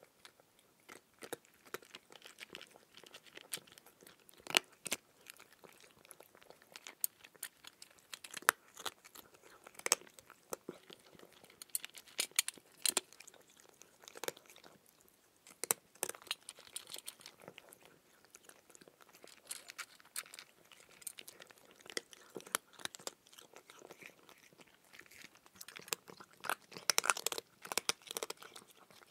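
A person chewing raw cucumber: irregular crunches and chewing clicks, with a denser run of crunching near the end.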